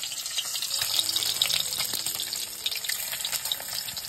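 Food sizzling in hot mustard oil in a pan: a steady hiss with many small crackles and spits.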